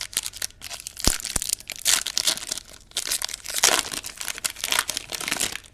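A trading-card pack's wrapper being torn open and crinkled by hand: dense, irregular crackling with a couple of light knocks a little over a second in, stopping just before the end.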